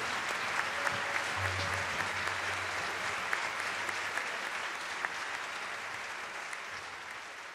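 Audience applauding, a dense even clapping that dies away near the end.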